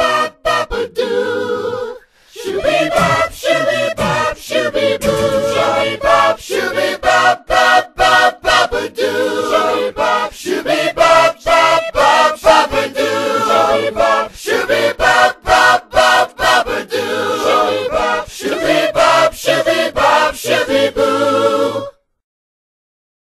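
A cappella voices singing nonsense scat syllables in harmony, in short rhythmic phrases with no instruments. The singing stops abruptly about 22 seconds in.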